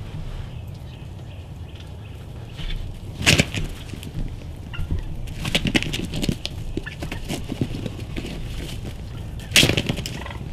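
Wild turkeys fighting, a gobbler attacking a jake: loud bursts of beating wings in several bouts, the loudest about three seconds in and near the end.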